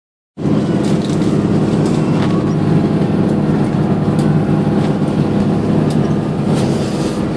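Passenger ferry's engines droning steadily, heard inside the cabin, with a few faint light clicks on top.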